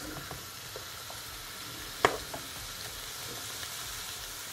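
Callaloo, shrimp and chopped peppers sizzling steadily in a non-stick frying pan while a plastic spoon stirs them, with one sharp tap of the spoon against the pan about two seconds in.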